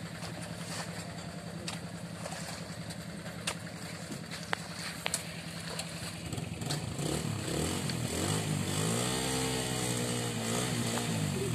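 Yanmar Bromo Pro hand tractor's single-cylinder diesel engine running at idle, with a few sharp clicks, then revved up about six seconds in, held at a higher speed and dropping back near the end.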